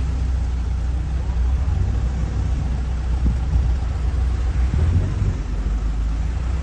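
Vehicle engine running with a steady low rumble, heard from inside the vehicle as it creeps slowly forward.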